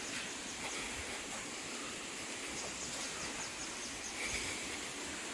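Forest ambience: a steady hiss with insects chirping in short, rapidly repeated high notes that come and go.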